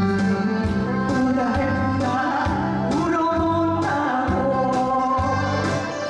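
A woman singing a Korean trot song into a microphone over a recorded backing track with a steady beat.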